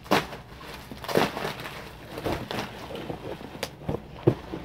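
Bubble wrap and plastic packing rustling and crinkling as a toy robot is unwrapped, with a few sharper crackles.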